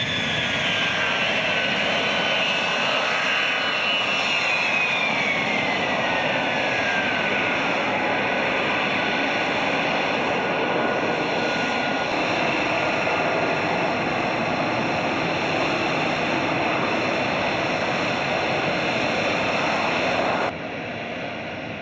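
F-35B Lightning II's F135 turbofan running at taxi power, a steady jet roar. Over the first eight seconds several whines glide down in pitch as the lift-fan winds down after the vertical landing. Near the end the roar drops suddenly to a quieter, duller level.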